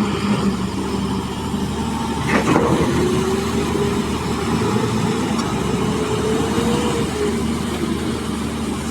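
Heavy diesel engines of quarry machinery running steadily. There is a sharp bang about two and a half seconds in, and a whine that climbs slowly and then fades a few seconds later.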